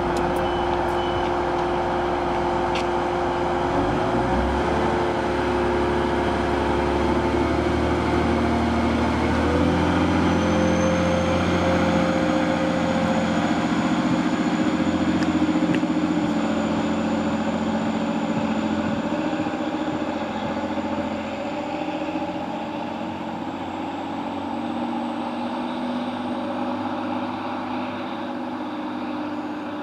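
TransPennine Express Class 185 diesel multiple unit pulling away, its Cummins QSK19 underfloor engines running under power. The engine note changes about ten seconds in, and the sound fades over the last third as the train draws away.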